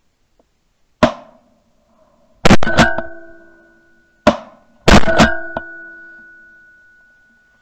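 Shotgun fire at a flying duck: two loud shots about two and a half seconds apart, each followed by a metallic ringing that fades over about two seconds, with a shorter, sharper bang just before each.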